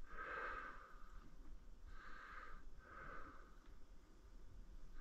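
Faint nasal breathing, a few sniffly breaths in and out with pauses between them, from someone with a cold close to the microphone.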